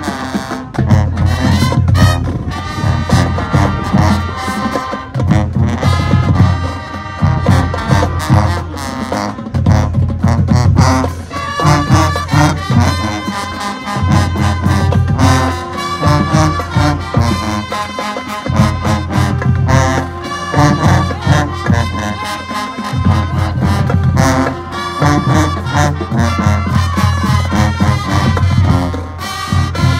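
Marching band playing: a brass section carries the tune over heavy bass drums and percussion, the low drum beats dropping out for short stretches now and then.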